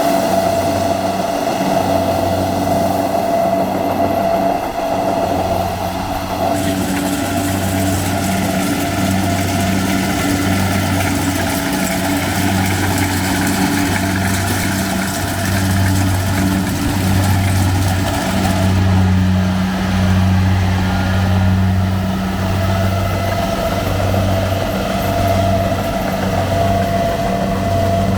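Combine harvester running steadily under load. The engine hum throbs slowly and evenly, and a steady high whine from the machine comes and goes.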